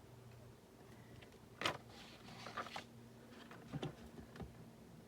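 A few faint clicks and taps of small craft items being picked up and set down on a desk, the sharpest about a third of the way in, over a low steady hum.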